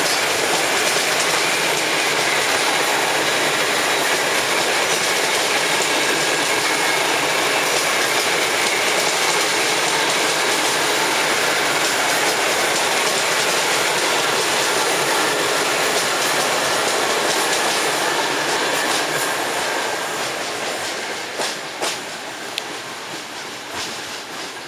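Passenger coaches rolling past close by, steel wheels running on the rails with a steady, loud rolling noise. The sound fades over the last several seconds as the last coach passes and the train draws away, with a few sharp clacks from the wheels near the end.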